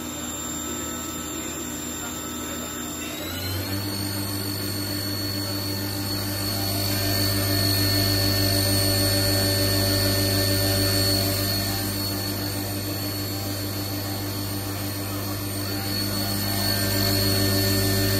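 2004 Haas Mini Mill spindle running free at about 5,000 rpm: a steady whine made of several pitches. About three seconds in, the pitch glides up over half a second and a low hum joins it, then it holds steady at the higher pitch.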